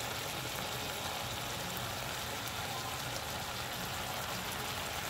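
Brussels sprouts sizzling and simmering in olive oil and a little water in a pan: a steady crackling hiss that cuts off suddenly at the end.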